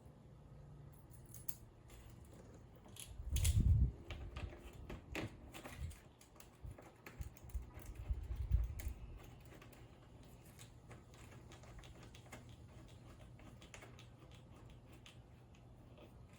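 Scattered light clicks and taps of a golf-cart wiring harness and its parts being handled and fitted, with two dull thumps about three and a half and eight and a half seconds in.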